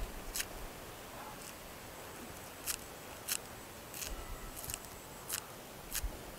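Kitchen scissors snipping spring onions: a series of short, crisp snips, about one a second.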